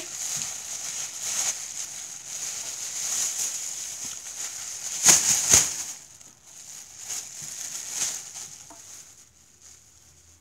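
Plastic bag rustling and crinkling as it is handled, with two sharp crackles about five seconds in and another near eight seconds.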